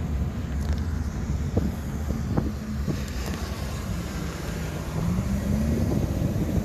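Motorway traffic noise, cars and lorries passing, mixed with wind buffeting the microphone as a low rumble; a low hum rises slightly in pitch about five seconds in.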